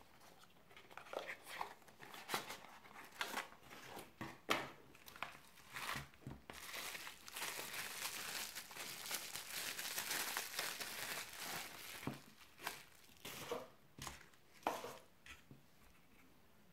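Hands unpacking a folding knife: a cardboard box handled with scattered taps and rustles, then bubble wrap crinkling continuously for several seconds from about a third of the way in, then scattered taps and rustles again as the wrapped knife and its fabric pouch are handled.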